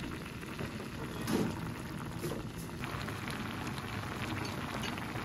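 Kimchi stew broth with ramen noodles boiling hard in a pot: a dense, steady bubbling and popping, with one louder moment about a second and a half in.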